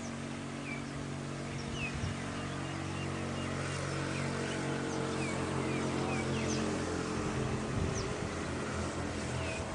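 A steady engine hum from a motor vehicle, swelling slightly and easing off, with small birds chirping throughout.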